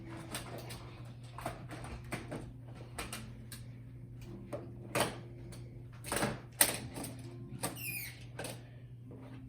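Plastic magnetic building tiles (Magna-Tiles) clicking and clacking together as they are handled and snapped into place: irregular clicks, with a few louder clacks about five to seven seconds in.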